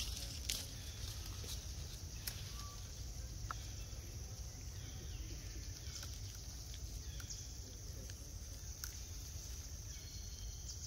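Outdoor ambience: a steady high insect drone over a low rumble, with scattered small clicks and snaps from dry bamboo stalks and roots as a young long-tailed macaque tugs at them.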